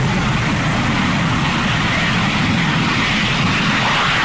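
Jet aircraft in flight: a steady rushing engine noise that grows brighter about a second and a half in.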